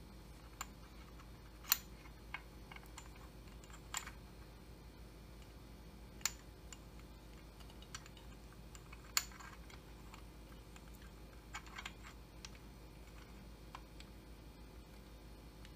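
Light, irregular metallic clicks and taps from a chainsaw piston and wrist pin being handled and lined up on the connecting rod, a dozen or so spread unevenly with long gaps between them.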